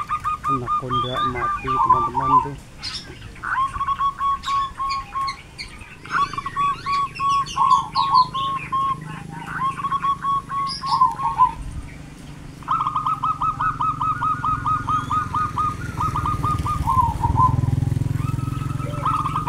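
Zebra dove (perkutut) singing: repeated phrases of quick cooing notes, several ending in a falling slur, with smaller birds chirping higher above. A low rumble comes in about six seconds in and is strongest near the end.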